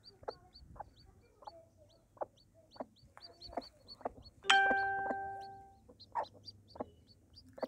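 Newly hatched chicks peeping: a steady run of thin, high cheeps, three or four a second, over short soft clucks from the broody hen. About four and a half seconds in, a loud bell-like ding rings out and fades over about a second.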